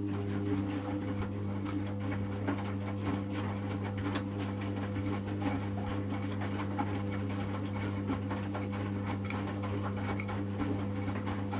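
Servis Automatic M3008B washing machine's motor turning the drum during the heating stage of a 40°C wash: a steady motor hum with the wet load tumbling and clicking inside the drum.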